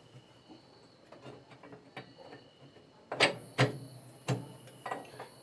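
Metal parts and tools being handled while a jack is set up on a washing machine: a few light clicks, then about four sharp, loud knocks in the second half. A faint, steady high whine starts with the first loud knock.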